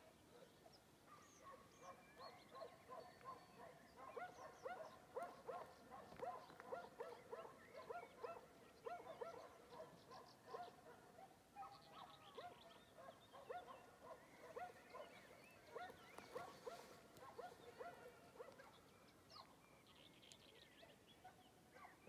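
Faint chorus of many short animal calls repeating and overlapping, busiest in the middle.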